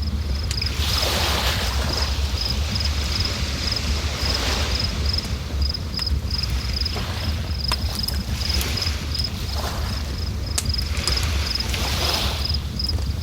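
River water rushing, swelling in waves every few seconds, over a low rumble, with an insect chirping in a steady rapid pulse.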